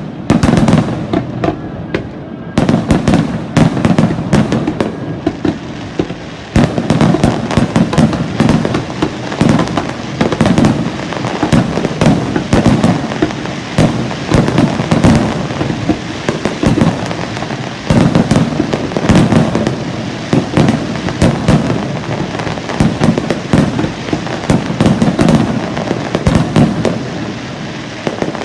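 Fireworks display: aerial shells bursting in a rapid barrage, with heavy booms about every two seconds over continuous crackling.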